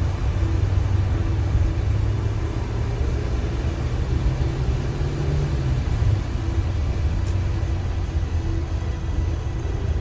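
Steady low rumble of a car driving along a road, tyre and engine noise with a fainter hiss above it.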